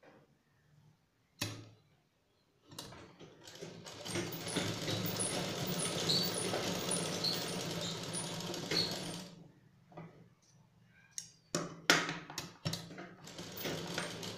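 Black domestic sewing machine stitching a fabric strip, running for about six seconds. A click comes before it starts, and a few clicks and knocks of fabric handling follow after it stops.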